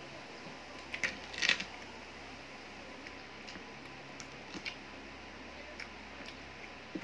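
Eating by hand: fingers squishing and mixing rice and chicken on a plate, with chewing, heard as scattered small clicks and squelches, loudest in a short cluster about a second in.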